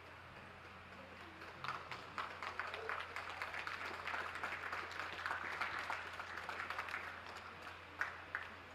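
Audience applause: scattered clapping starts about a second and a half in, swells into steady clapping, then thins out to a few last claps near the end.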